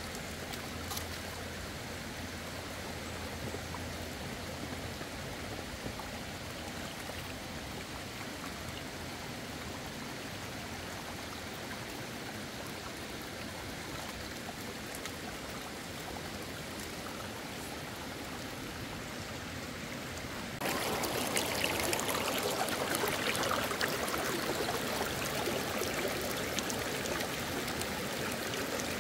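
A small shallow brook running and trickling over stones, a steady rush of water that grows louder about two-thirds of the way through.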